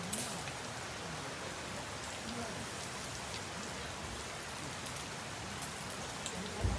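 Steady rain falling, an even hiss with a few faint patters, and a low thump near the end.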